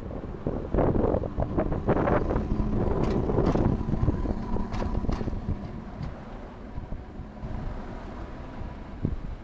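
Hankai Tramway car 162, a 1928-built Mo 161-class streetcar, passing close by. Its wheels clatter over the rail joints and points in a run of sharp knocks, with a low steady hum, and the sound fades after about five seconds as it moves away.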